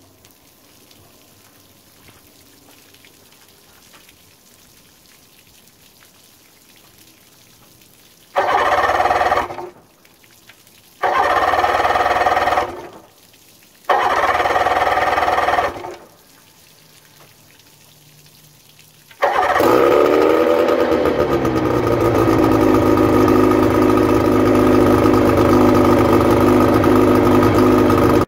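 Evinrude Tracker 40 outboard motor cranked by its electric starter in three bursts of a second or two each. It catches about nineteen seconds in, and the revs drop and settle within a couple of seconds into a steady idle.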